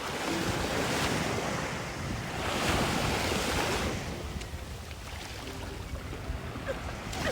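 Small waves washing up on a sand beach, one surge swelling about two and a half seconds in and fading a second or so later, with wind buffeting the microphone.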